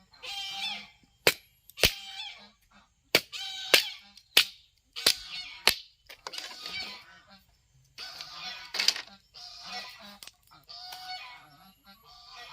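Domestic ducks quacking over and over in loud nasal calls. In the first half come about seven sharp knocks.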